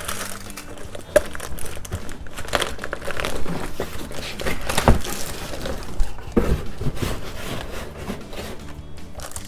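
Plastic film crinkling and rustling as a wrapped LED grow light panel is handled in its foam-lined cardboard box, with a few sharp knocks.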